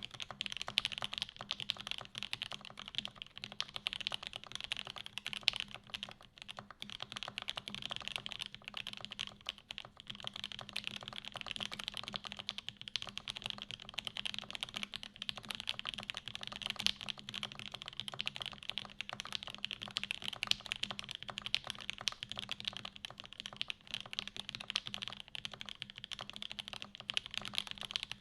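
Custom mechanical keyboard in a red polycarbonate case with a UHMWPE plate, OP Black switches lubed with 205g0, GMK keycaps and Durock stabilizers, typed on steadily and fast: a dense, continuous run of keystrokes.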